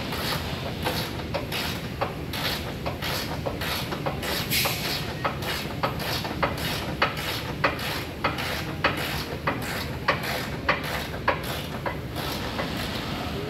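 Hand ratchet wrench clicking in a steady rhythm, about two strokes a second, as a fastener is worked on the underside of a car.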